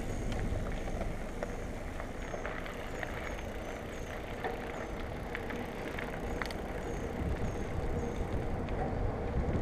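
Low, steady rumble of wind and handling noise on a GoPro microphone, with scattered sharp clicks and faint short high chirps repeating about twice a second.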